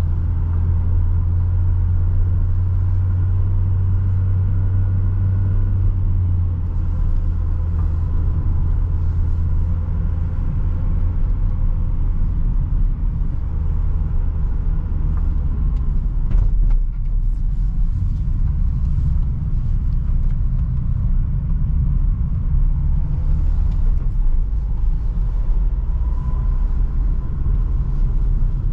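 Renault Trafic van driving, heard from inside the cab: steady engine hum and road rumble. The engine note drops about six seconds in, and a single knock comes just past the middle.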